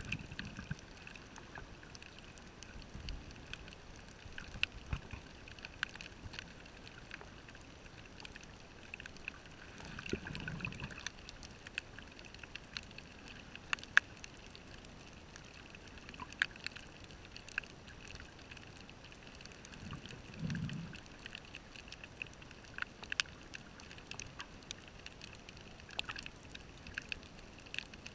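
Underwater ambience on a coral reef heard through the camera housing: scattered sharp clicks and crackles throughout, with a muffled low rush of a scuba diver's exhaled bubbles about every ten seconds, three times.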